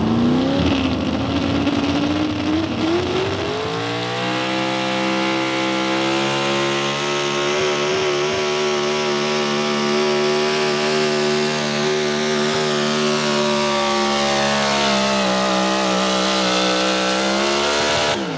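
Pro Stock 4x4 pulling truck's big-block V8, a 510-cubic-inch engine on a single four-barrel carburetor, at full throttle while dragging a weight-transfer sled. The revs climb over the first few seconds of the launch, then hold high and steady, dipping slightly about fourteen seconds in. Right at the end the revs begin to fall away.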